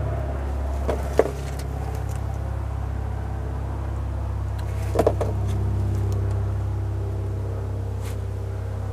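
A motor's steady low hum runs throughout, with a sharp click about a second in and a few light knocks about five seconds in from handling a sway-bar bushing.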